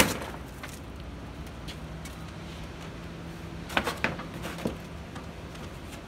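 A sharp knock as a boot kicks at torn floor sheeting under a pallet, then a few short crackles of the sheeting being torn about four seconds in, over a steady low hum.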